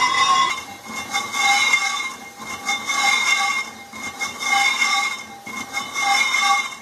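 Metal lathe turning a truck brake drum: the cutting tool screeches steadily against the spinning drum's rim, with several held shrill tones over a grinding hiss. The sound swells and fades about once a second.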